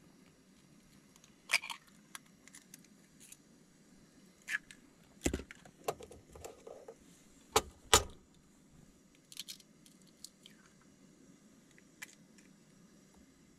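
Intermittent clinks and knocks of small hard objects being handled, the sharpest about a second and a half, five and eight seconds in, with lighter taps between.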